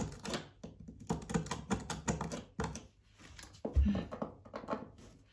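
Metal screwdriver scraping and prying at a nailed-down board on a floor crusted with tile adhesive: a quick, irregular run of clicks and scrapes, with one heavier knock a little under four seconds in.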